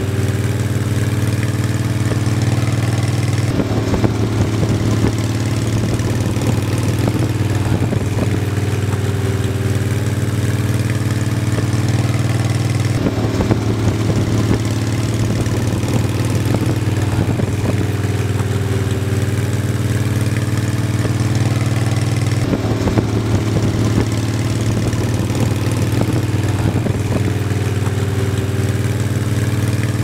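Music: a steady, loud low drone of held tones, with a pattern that repeats about every nine to ten seconds.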